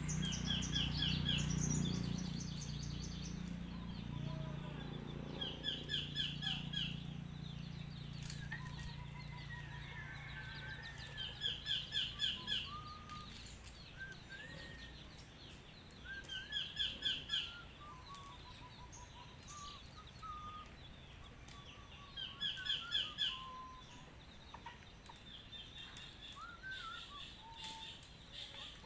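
A songbird repeating a short song of rapid, quick-fire notes about every five to six seconds, with fainter whistled calls from other birds in between. A low hum underneath fades away over the first half.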